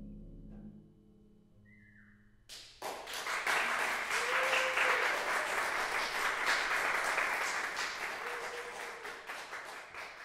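The last low notes of a concert pedal harp die away, then audience applause breaks out suddenly about two and a half seconds in and carries on, thinning near the end.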